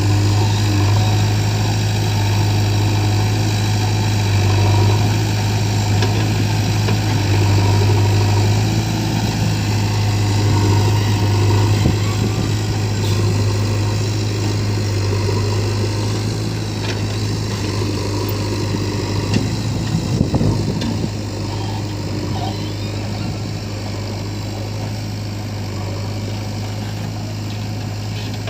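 Heavy diesel engine of the earthmoving machinery running steadily at a low, even hum, with a short burst of knocks about twenty seconds in.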